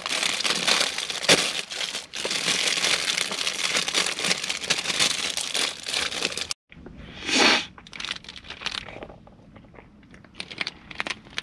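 A plastic snack wrapper crinkling and tearing as it is opened and handled, steadily for about six seconds before cutting off abruptly; after that, scattered fainter crinkles with one louder rustle.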